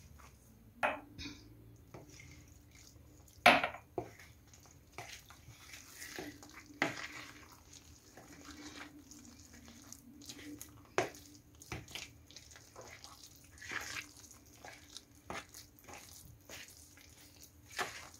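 Metal spoon stirring a wet batter of chopped nettles, flour and egg in a plastic bowl: irregular clicks and scrapes of the spoon against the bowl, with the wet sound of the batter being mixed.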